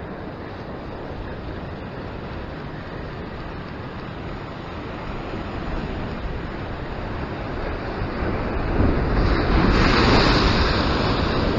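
Surf washing against a rock ledge, with wind buffeting the microphone. About eight seconds in the noise swells as a wave breaks against the rocks and sprays over.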